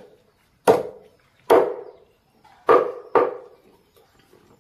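A large knife chopping raw chicken on a wooden chopping board: four sharp chops with a short ring of the board after each, the last two close together.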